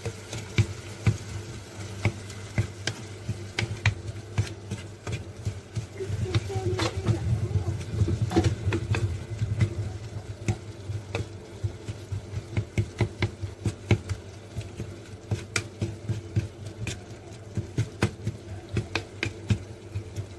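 Wooden spatula stirring and scraping tomatoes and spices frying in oil in a clay pot, with frequent irregular clicks and knocks of the spatula against the pot over a light sizzle.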